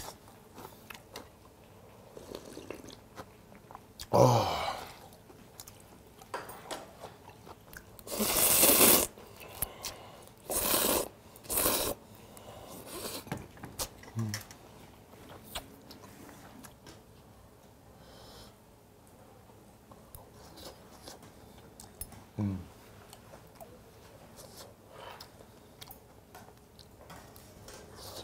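Close-miked chewing of buckwheat makguksu noodles and grilled galbi, with a few loud slurps in the first half, the longest about a second.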